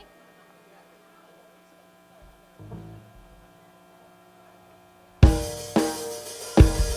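Steady electrical hum from the stage amplifiers, with a single low bass thud about two and a half seconds in; about five seconds in a live rock band starts a song with loud full-band hits on drums, bass and electric guitar.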